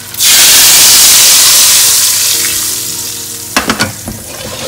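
Hot oil tadka of cumin seeds and red chillies poured into a pot of cooked dal: a sudden loud sizzle about a quarter second in that slowly dies down. A few knocks near the end.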